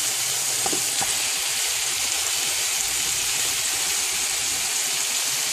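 Tofu, green onions and chiles sizzling steadily in hot oil and soy sauce in a frying pan as sliced red and yellow bell peppers go in.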